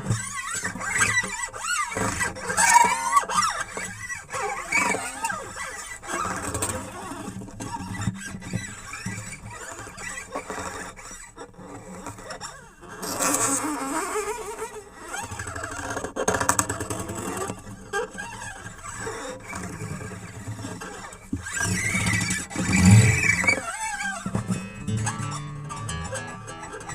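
Instrumental experimental music with wavering, gliding pitched tones. It swells louder about three seconds in and again near the end.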